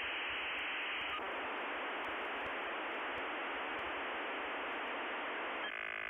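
Steady static hiss squeezed into a telephone line's narrow range, switching near the end to a harsh buzz of many steady tones.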